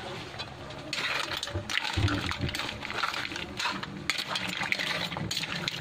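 Crabs, mussels and shrimp cooking in a metal wok: a dense run of irregular crackles and clicks, with light clinks of shells against the pan.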